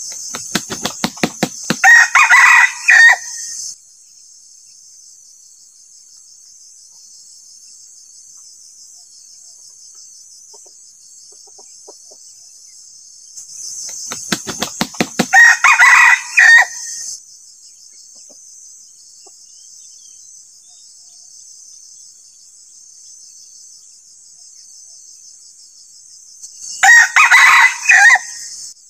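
Decoy rooster (ayam pikat) crowing three times, about twelve seconds apart. Each short crow is led in by a quick run of sharp beats.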